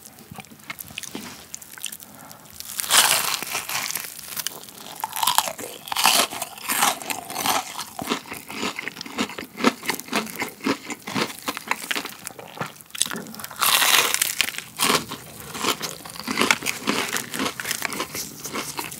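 Close-up crunching bites into a crispy, flat fried chicken cutlet (G-pie) dusted with consommé seasoning, followed by chewing. The loudest bites come about 3, 6 and 14 seconds in.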